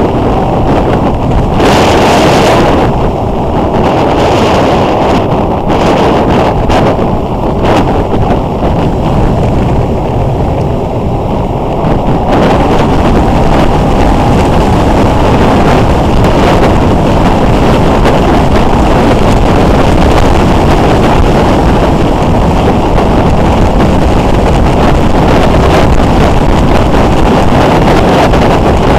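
Wind rushing over the microphone of a motorcycle-mounted camera at road speed, with the motorcycle's engine and tyre noise running underneath; it grows a little louder about twelve seconds in.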